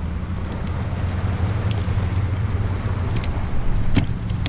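Steady low wind rumble buffeting the action camera's microphone over open water, with a few light clicks, the sharpest about four seconds in.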